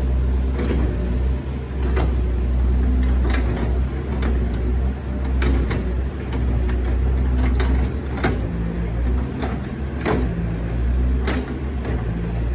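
Doosan 140 excavator's diesel engine running steadily under work, with a series of sharp, irregular knocks every second or so.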